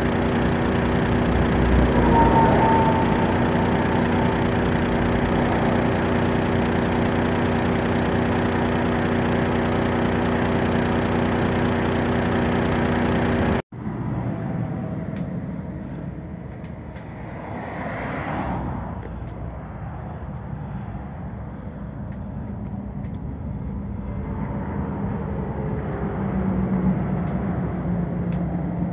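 Heavy truck's diesel engine idling steadily. About halfway through, after a cut, the engine is gone and motorway traffic passes, with one vehicle sweeping by a few seconds later.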